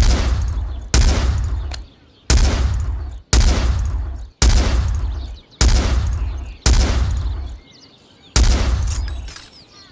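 Browning BAR Mk II Safari semi-automatic rifle firing eight shots, about a second apart with a longer gap before the last. Each report has a long echoing tail.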